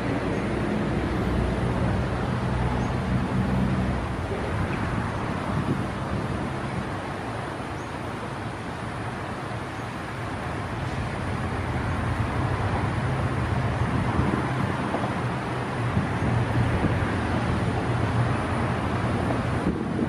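Diesel-electric locomotive running as it approaches slowly with a passenger train. It is a steady low engine drone with wheel and rail rumble, easing a little midway and building again as it draws nearer.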